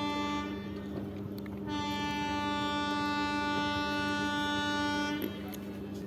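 Indian Railways locomotive horn of the 12747 Palnadu Express sounding loudly. A short blast ends about half a second in, then a long steady blast lasts about three and a half seconds, with a lower tone held underneath the whole time.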